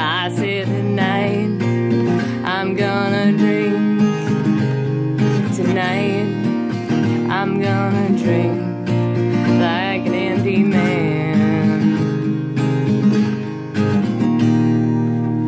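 A woman singing long held notes with vibrato over a strummed acoustic guitar. The music eases off and fades near the end.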